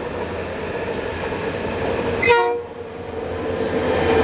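Rio Grande diesel freight locomotives approaching and passing close, their engines growing louder. The air horn gives a short chord-like blast just past two seconds in, then sounds again as a held chord from about three and a half seconds in as the units come alongside.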